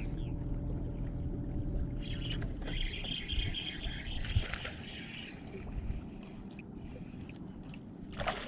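Fishing reel being cranked, a high whirring from about two to five seconds in, over a low rumble; near the end a short splash as a hooked bass comes to the surface beside the boat.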